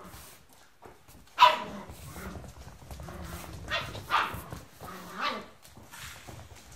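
Smooth collie barking: one sharp, loud bark about a second and a half in, then three more barks between about three and a half and five seconds in, during rough-and-tumble play.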